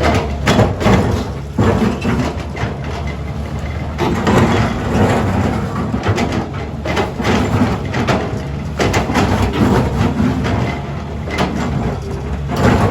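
Excavator engine running steadily under load while the bucket teeth scrape, grind and knock against rock, giving a continuous clatter of short hard scrapes.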